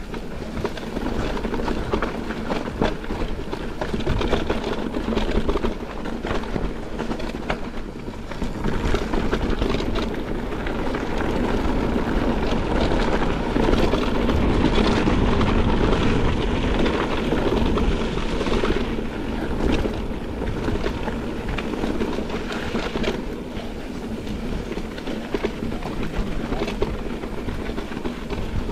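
Mountain bike descending a rough, stony trail: continuous rattling from the bike, tyres rolling over stones and rumble on the microphone, loudest around the middle.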